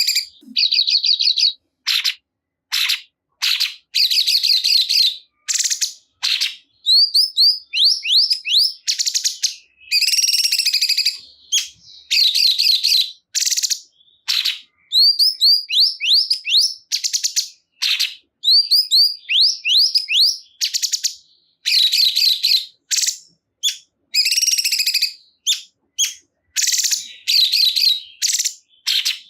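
Cungkok songbird singing loud, rapid chirping phrases of quick rising notes, repeated again and again with short pauses between. It is a masteran song recording played to make caged cungkok birds sing along.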